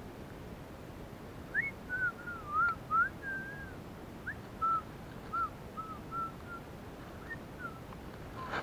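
A person whistling idly: a wandering string of short, wavering notes that starts about a second and a half in and trails off near the end, followed by a short click.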